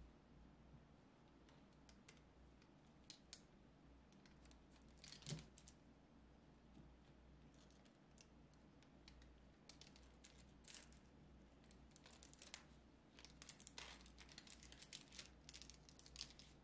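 Faint crinkling of parchment paper and soft clicks as a knife presses through a slab of soft caramel onto the paper. The sharpest click comes about five seconds in, and a run of quick small crackles comes near the end.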